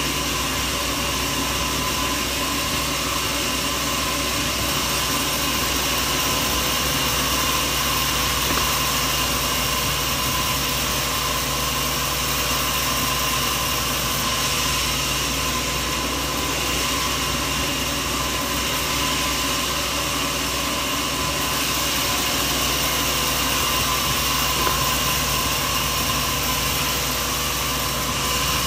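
Sawmill machinery running with a steady drone and a few constant whining tones that do not change in level.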